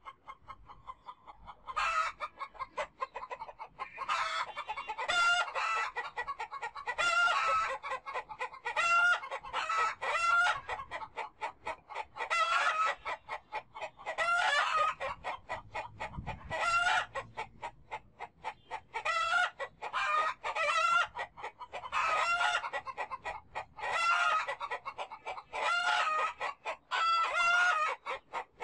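Chickens clucking and calling, short pulsing calls repeating every second or two.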